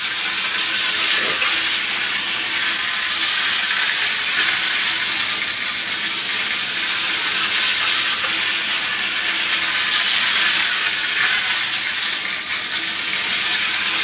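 Hornby Dublo three-rail model locomotive running steadily around its metal track: a continuous rattling hiss from the wheels on the rails, with a faint steady hum underneath.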